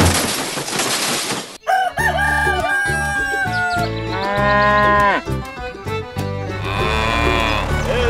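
A rushing noise for about a second and a half, then a rooster crowing several times, over background music with a steady beat.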